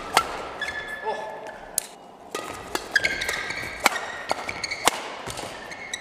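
Badminton rackets striking a shuttlecock in a fast doubles rally, a sharp crack about once a second. Brief high squeaks from court shoes come in between the hits.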